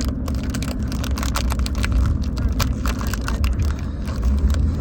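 Steady low road rumble inside a moving car's cabin, with frequent small crackles and clicks over it.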